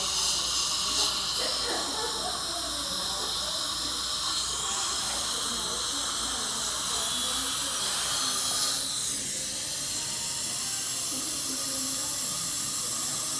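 Steady high-pitched hiss of dental equipment, with a brief shift in its sound about nine seconds in.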